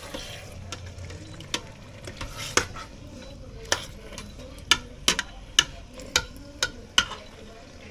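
Metal utensil clinking and knocking against a cooking pot as bone-in chicken pieces are put in and moved around, about a dozen sharp knocks in irregular succession, most of them in the second half.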